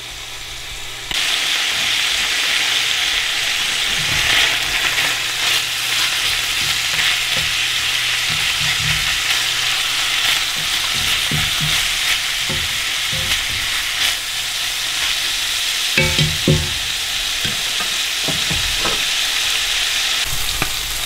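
Shredded bear meat and cranberries sizzling in a cast-iron skillet while a wooden spoon stirs and scrapes them, with scattered knocks of the spoon against the pan. The steady sizzle comes in suddenly about a second in. The pan is running dry enough that the meat is sticking.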